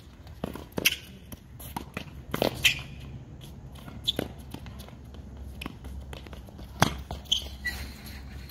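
Tennis ball struck by rackets and bouncing on a hard court during a rally: a string of sharp pops a second or two apart, the loudest about two and a half and about seven seconds in.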